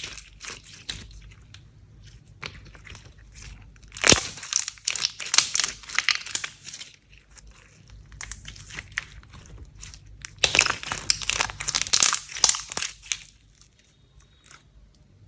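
Slime being squeezed and stretched by hand, giving crackly, sticky popping in two longer bouts with scattered pops between them.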